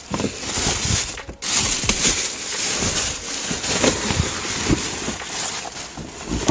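Thin plastic shopping bags rustling and crinkling as a boxed toy is pulled out of them, with a few soft knocks of the cardboard box.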